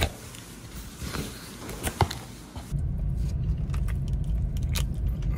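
Paper takeout bag rustling and crinkling as a piece of fried chicken is pulled out. After a sudden cut, a steady low rumble fills a car cabin, with a few crisp crunches as a fried chicken drumstick is bitten.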